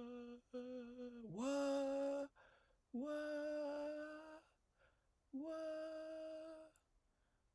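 A voice humming a series of long held notes, each about a second or more, with short breaks between them. The notes step slowly higher in pitch.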